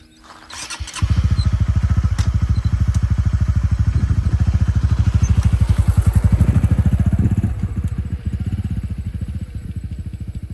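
An engine running with a fast, even pulse, starting about a second in and easing off a little after about seven seconds.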